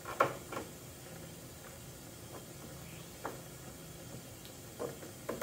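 Short sharp wooden knocks and taps, five in all: the loudest comes just after the start, then one soon after, one past the middle and two close together near the end, as a steam-bent white oak strip is worked against a curved bending form.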